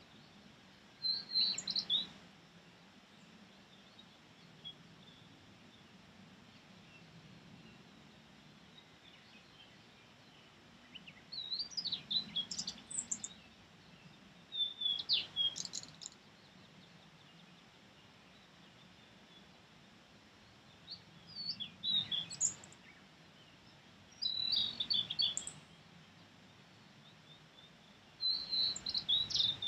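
Male blue-and-white flycatcher singing: short high-pitched phrases of quick notes, repeated about six times with pauses of a few seconds between them.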